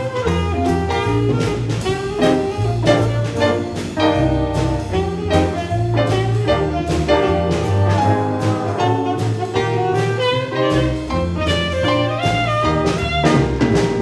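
Student jazz big band playing a swing tune: saxophones and brass over bass and drums keeping a steady beat.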